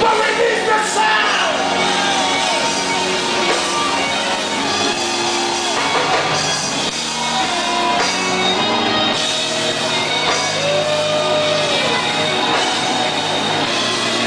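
Loud live gospel music: a man singing into a handheld microphone over a church band, with steady held keyboard chords beneath.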